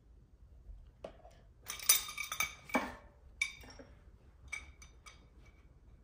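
Steel wrenches and hydraulic hose adapter fittings clinking against each other as the fittings are handled and tightened. There is a busy cluster of short ringing clinks about two seconds in, then a few single clinks.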